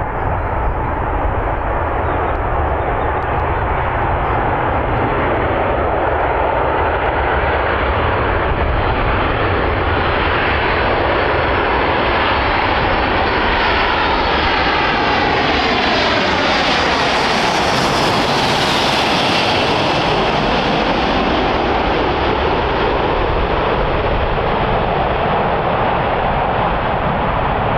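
Four-engine C-17 Globemaster jet transport passing close by, its turbofans making a steady loud rush. The sound grows brightest about two-thirds of the way through, with a falling sweep in its tone as the aircraft goes past.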